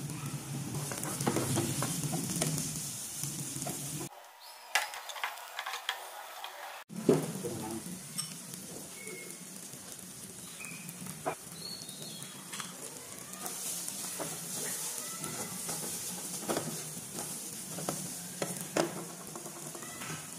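Chopped onions, chillies and cumin seeds sizzling in hot oil in a metal kadai, with a metal spatula scraping and knocking against the pan as the mixture is stirred. The sizzle dips for a few seconds about four seconds in, then picks up again.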